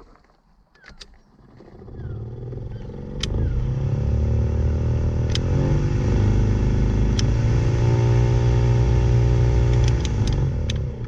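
Audi Coupe heater blower motor switched on with a newly fitted blower resistor. It spins up over a couple of seconds, then runs with a loud, steady hum whose pitch shifts partway through, before winding down near the end. The blower is described as quite noisy.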